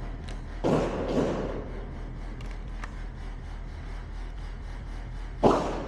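Muffled gunshots from elsewhere on the range, fired in pairs: a double tap about a second in and another near the end, each shot sharp at the onset and echoing away. A few faint clicks fall between them.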